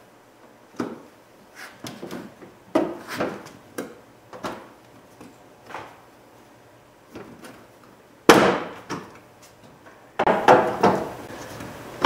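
Plastic clicks and knocks from a Toyota Sienna's front corner lamp housing being worked loose from its clips by hand. The sharpest snap comes about two-thirds of the way through, followed by a quick run of clunks.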